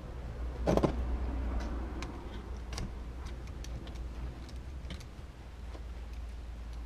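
Small clicks and taps of a hand tool and plastic RC-car parts being handled during reassembly of a wheel carrier, as its bottom screw is put back in. A louder knock with a short scrape comes about a second in, then scattered light ticks.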